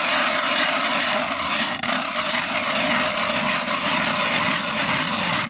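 A small power ice auger's motor running steadily as it drills through lake ice, then stopping abruptly.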